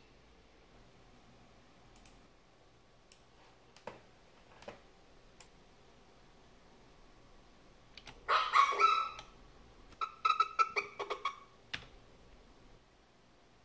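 A few soft computer mouse clicks, then a chihuahua barking: one loud bark about eight seconds in, followed by a quick run of short yaps for about two seconds.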